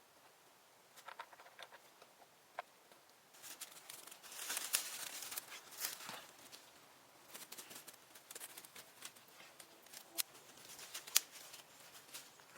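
Irregular crackling and rustling of dry wood and leaves, with sharp clicks and snaps, busiest about four to six seconds in and with one louder snap near the end.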